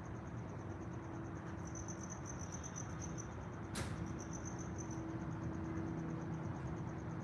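An insect, cricket-like, chirping in a fast, even, high-pitched pulsing trill that carries on throughout and grows louder for a while in the middle. A single sharp click is heard a little past halfway, over a low background hiss.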